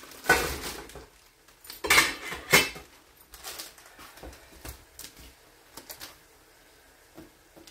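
Stainless steel pot lid and saucepan clanking as they are handled: a few sharp metal clatters in the first three seconds, then fainter light knocks.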